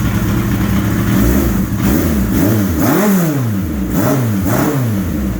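1983 Suzuki GS1100E's air-cooled inline-four engine running cold on part choke. It idles steadily, then from about two seconds in it is blipped several times in quick succession, the pitch rising and falling with each rev.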